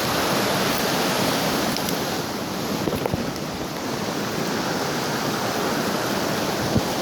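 A small waterfall on a snowmelt creek, the water pouring and splashing in a steady, loud rush.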